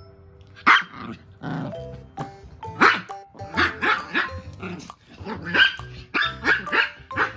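Small poodle-mix dogs, a Maltipoo and a Pomapoo puppy, barking in rough play: a quick run of sharp yaps that starts about a second in and keeps going, about a dozen in all.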